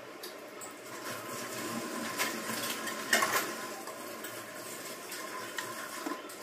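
Kitchen work sounds: dishes and utensils clinking and clattering, with the loudest clatters about two and three seconds in.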